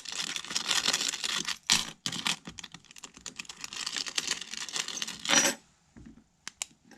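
Metal keys scraped rapidly back and forth across a phone screen, the keys jangling as they scrape, with a brief break about two seconds in. The scraping stops about five and a half seconds in, followed by a few light clicks.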